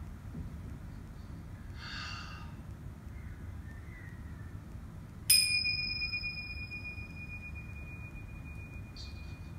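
A small brass meditation chime struck once about five seconds in: a sharp strike, then a clear, high tone that rings on and slowly fades. A faint clink about two seconds in as the chime is handled.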